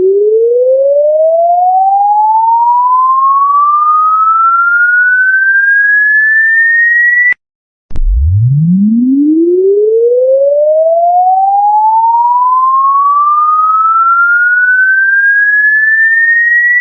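Electronic sine-wave test tone sweeping steadily up in pitch from a low hum to a high whistle, a frequency sweep used as a sound check. It cuts off suddenly a little past seven seconds in, then starts again from the bottom and rises once more.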